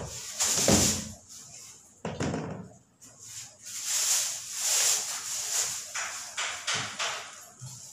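Irregular rustling and scraping noises from things being handled, in several short bursts.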